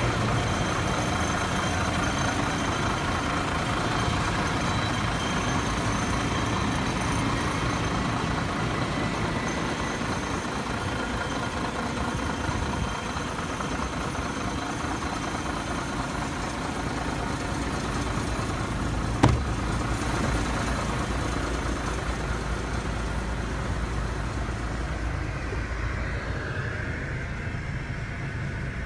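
Iveco Stralis AS440S42 truck's six-cylinder diesel engine idling steadily, with a single sharp click about two-thirds of the way through. Near the end the sound turns duller.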